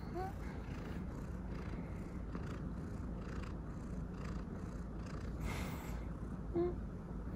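Maine coon cat purring steadily as it is stroked on the head. Two short chirps come through, one just after the start and one near the end, and there is a brief rustle a little past the middle.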